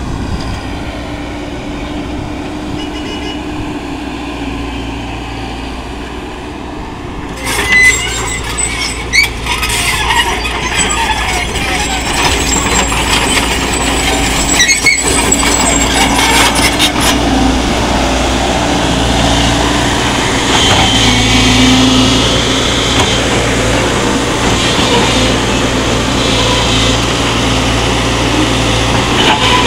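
JCB JS140 tracked excavator's diesel engine running steadily. About seven seconds in, the sound grows louder, with sharp clattering for several seconds, as the machine works the gravel.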